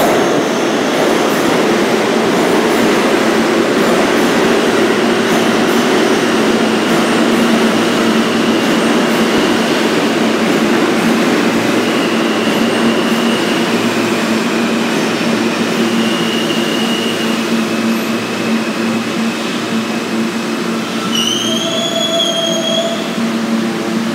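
New York City Subway R160 train pulling into an underground station: a loud, continuous rumble of the cars running over the rails. Brief high squeals come in as it slows, and a louder squeal that rises and then holds comes near the end as the train brakes toward a stop.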